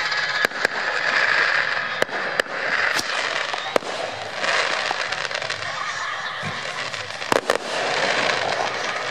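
Fireworks going off: scattered sharp bangs of launches and bursting shells over a steady hiss and crackle, with two of the loudest bangs in quick succession near the end.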